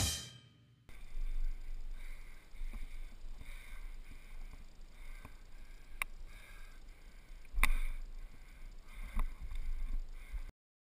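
Rock music fades out at the start. After a second of near silence comes the GoPro HD camera's own sound: low wind rumble and handling noise, with sharp clicks about six, seven and a half and nine seconds in.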